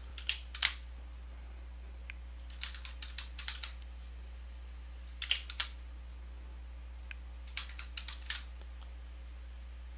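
Computer keyboard being typed on in short bursts of a few keystrokes with pauses between, over a steady low electrical hum.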